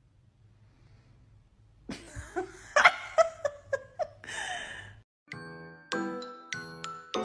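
Near silence for about two seconds, then a few seconds of short, irregular sounds with some rising and falling pitch. About five seconds in, background music with clear, plinking steady notes starts.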